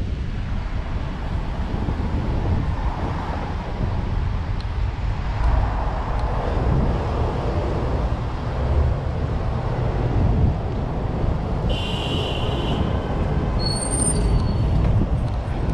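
Steady road traffic noise with a continuous low rumble, heard from a moving bicycle. About twelve seconds in there is a brief high-pitched squeal lasting about a second.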